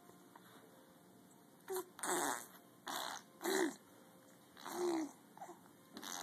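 A person making imitation fart noises: about six short blasts in quick succession, starting a little under two seconds in.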